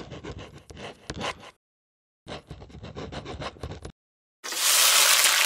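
Pen scratching across paper in two runs of quick strokes, a handwriting sound effect. About four and a half seconds in, a loud steady hiss starts.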